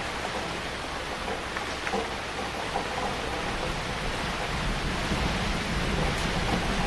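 Heavy rain falling in a steady dense hiss. A low rumble builds underneath in the second half.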